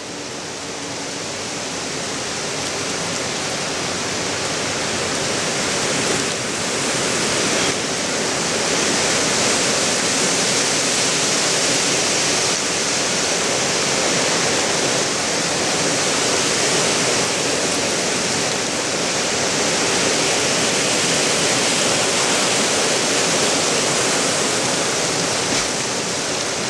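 Heavy rain pouring down in a thunderstorm, a steady hiss that grows louder over the first several seconds and then holds.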